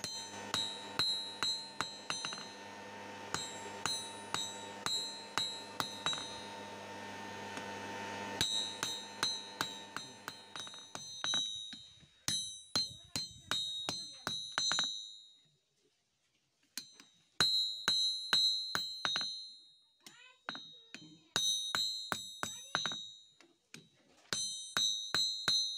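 Hand hammer blows on hot steel on an anvil, about two a second, each with a high metallic ring from the anvil. The blows come in runs separated by short pauses. A steady low hum sits under the first half.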